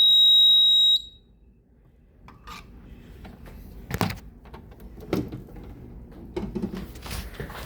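A fire alarm system's high-pitched electronic tone holds steady and cuts off sharply about a second in, during a reset of the fire alarm control panel. After it come scattered clicks, knocks and rubbing from handling the devices.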